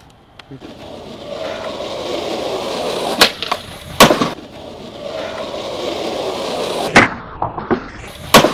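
Skateboard wheels rolling on concrete, growing louder as the board comes closer, with a few sharp board clacks. Near the end come the pop of the tail for a high ollie and the landing about a second later.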